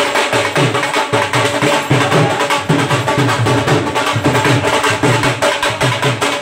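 Dhols, double-headed barrel drums, beaten in a fast, driving folk rhythm by a group of drummers, with a steady held tone underneath.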